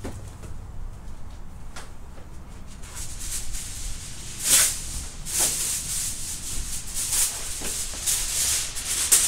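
Sheet of aluminium foil being handled and crinkled, starting about three seconds in: a dry rustling crackle with a few sharper crunches, getting busier toward the end.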